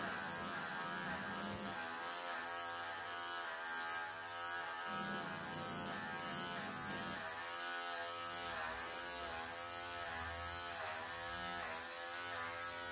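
Wahl electric pet clippers running with a steady buzz, shaving a matted pelt off a long-haired cat. The pitch sags briefly several times as the blade bites into the dense mat.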